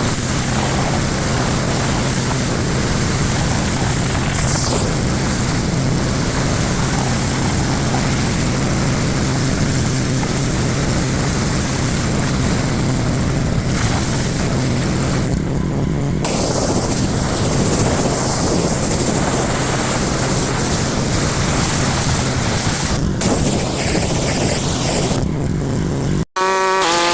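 Pressure washer running while spraying: a steady motor and pump hum under the continuous hiss of the high-pressure water jet. The high hiss drops out briefly twice while the hum carries on.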